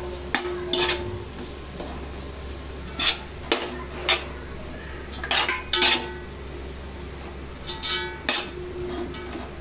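Metal ladle scraping and knocking against the sides and bottom of a large aluminium pot as vegetables are stirred, in irregular clusters of strokes. Some knocks leave the pot ringing briefly, over a steady low hum.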